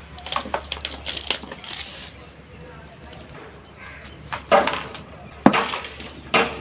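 Dry, dusty concrete balls crushed and crumbled between the hands: quick small crackling crunches in the first second or so, then three louder crunches in the second half as lumps break apart.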